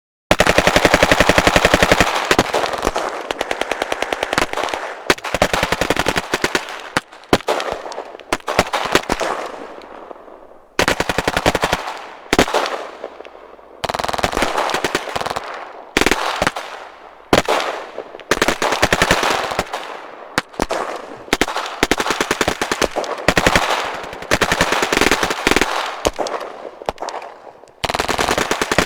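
Automatic gunfire in repeated rapid bursts, about one every second or two, each burst trailing off in an echo. The longest burst opens it.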